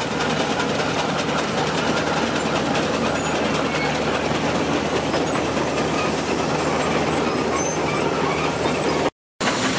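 1911 McLaren steam road locomotive driving along under steam, a steady mechanical running noise. The sound drops out for a moment near the end.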